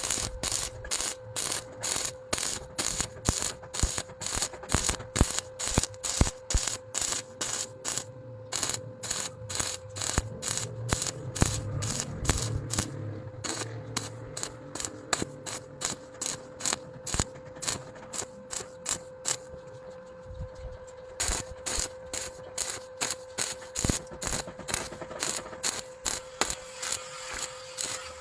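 Rhythmic scraping or rubbing strokes, about three a second, over a steady hum. The strokes weaken for several seconds past the middle, then pick up again.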